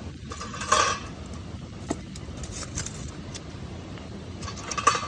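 Rustling and light clicking over a steady low hiss, with a short louder rustle about a second in and another near the end.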